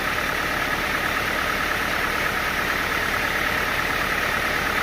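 An engine running steadily, a constant mechanical drone that does not change.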